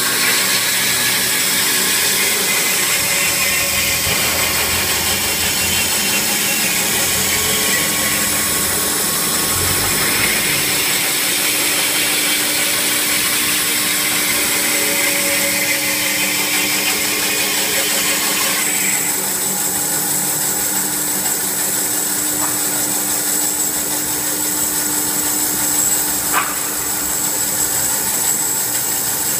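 Cosen CNC1212 curve band saw running, its blade cutting through a stack of wooden boards along a curve: a steady machine noise with sawing hiss. About two-thirds of the way in the higher hiss drops away, and a single sharp click comes near the end.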